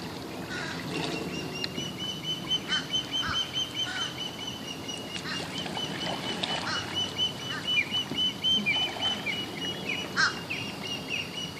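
Birds calling: a steady, rapidly pulsing high trill runs on from about a second in, with many short downward chirps. Underneath are soft water sounds from a kayak paddle being swept through the water.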